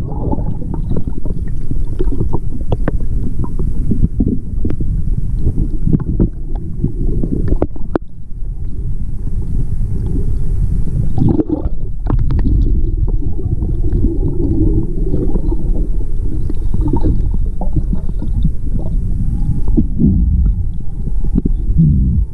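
Underwater sound picked up through a chest-mounted camera: a diver's exhaled air bubbles gurgling past, with many small clicks over a dense low rumble.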